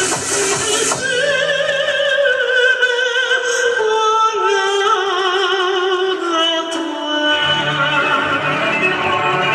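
Music: a solo voice sings long, wavering notes with strong vibrato over an accompaniment. A few sharp clicks sound in the first second, and a deeper bass comes in about seven seconds in.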